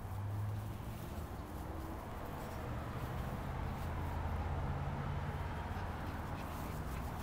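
Small dogs growling low as they play.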